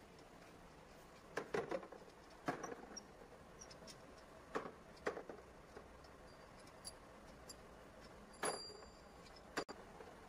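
Steel nuts clicking and clinking as they are turned off the studs of a truck hub's axle-shaft flange by hand and dropped into a plastic tray: about half a dozen scattered taps, one near the end ringing briefly. The nuts are coming off so that a broken drive-axle shaft can be pulled.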